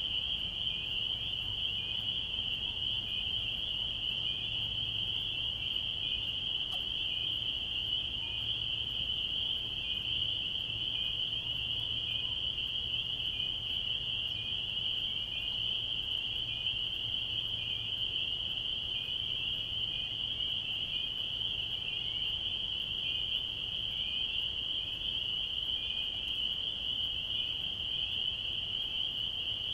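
Dense chorus of frogs calling, an unbroken high-pitched shrill that holds steady throughout.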